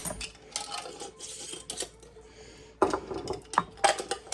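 Scattered clinks and taps of kitchen utensils, a measuring spoon and spice jars being handled, as dried seasonings are measured into a pot.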